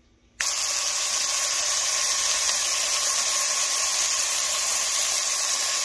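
Speckled trout fillets sizzling in hot oil in a frying pan: a loud, steady hiss that starts suddenly about half a second in.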